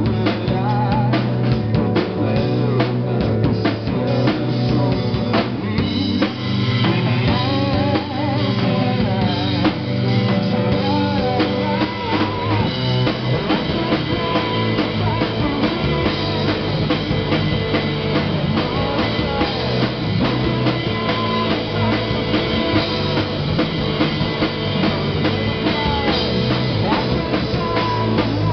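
Live amplified rock music: electric guitar played over a drum kit with a steady beat.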